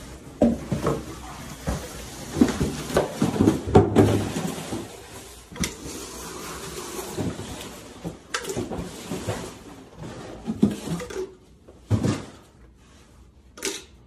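Irregular clinks and knocks of a metal leak-detection ground microphone being lifted and set down on a ceramic tile floor, with shuffling footsteps. The handling noise is busiest in the first half and thins out later, with a couple of sharp single knocks near the end.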